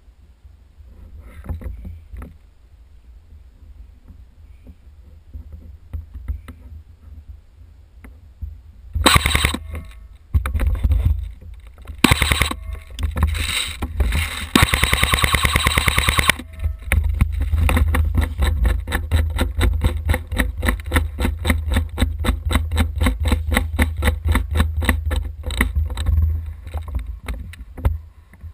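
Airsoft guns firing: after a few quiet seconds of low rumble, short bursts start about nine seconds in, then a long full-automatic string, followed by fast, even rattling clicks that carry on almost to the end.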